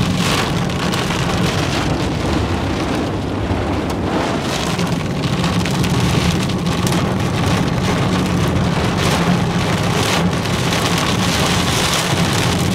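Heavy, wind-driven rain hitting the car's windshield and body, heard from inside the moving car, over a steady low road and engine rumble.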